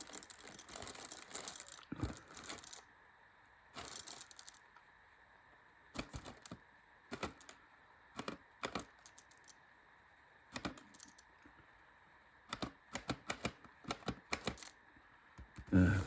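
Whole coffee beans being poured and dropped into a hand coffee grinder's bean chamber, making irregular hard clicks and rattles. There is a dense patter in the first few seconds, then scattered single clicks and small clusters.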